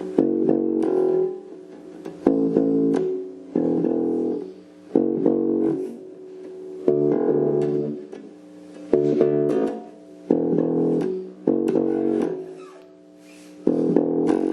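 Glarry Jazz-style electric bass played through its Glarry practice amp, with the tone control turned all the way down: a run of about ten plucked notes, each ringing for about a second.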